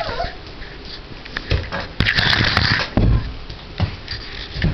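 A puppy scampering and scuffling on a tile floor: a short falling whine at the start, then a loud scratchy rustle about two seconds in and a few dull thumps.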